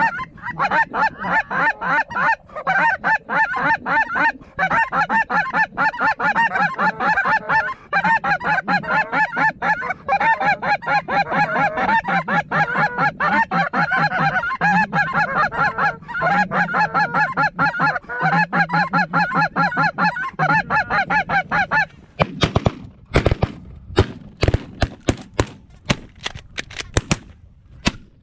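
A dense, continuous din of snow goose calls, many birds honking at once, which cuts off suddenly about 22 seconds in. A rapid volley of a dozen or more shotgun shots from several hunters follows over the last six seconds.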